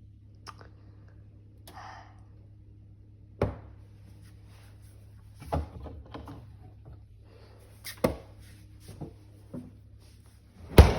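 A series of irregular knocks and thumps, about five, the loudest near the end, over a faint steady low hum.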